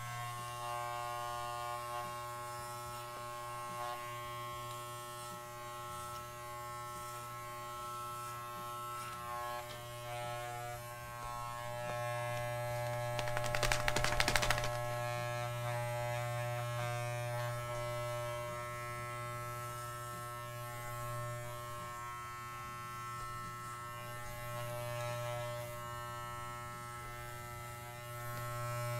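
Corded electric dog-grooming clippers running with a steady buzz while trimming a miniature schnauzer's coat. About halfway through comes a brief, louder burst of rapid flapping as the dog shakes itself.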